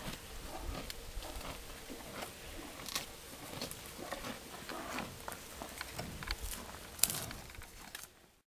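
Red Angus cow chewing close to the microphone: a run of irregular soft crunches and clicks, with one sharper click about seven seconds in, fading out near the end.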